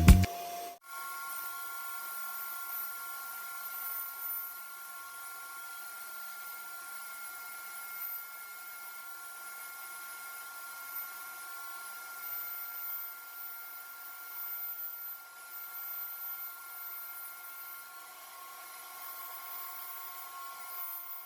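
Music cuts off under a second in, leaving a steady faint hiss with a thin, steady high whine.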